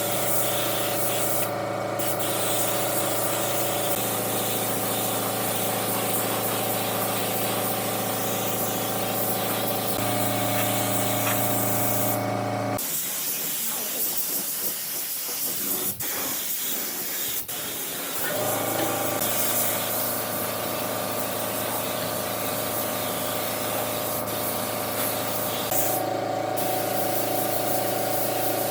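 Steady compressed-air hiss over the even hum of a workshop motor. The hum changes pitch in several places and drops out for about five seconds in the middle while the hiss carries on.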